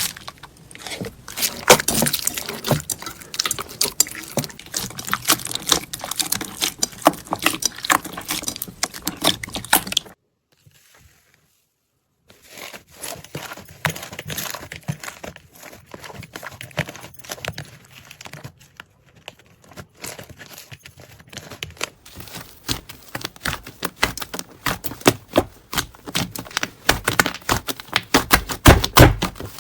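Slime being squeezed and poked by hand, giving a dense run of small crackling clicks. The clicking stops for about two seconds a third of the way in, then starts again and grows busier toward the end.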